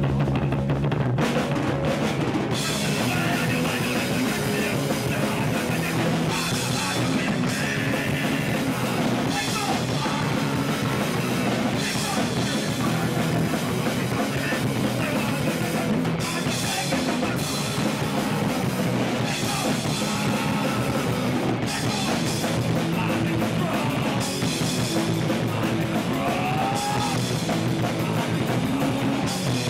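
Hardcore punk band playing live in a small room: electric guitar, bass guitar and drum kit going at full tilt, with a singer shouting into a handheld microphone. The song kicks in abruptly at the start and runs without a break.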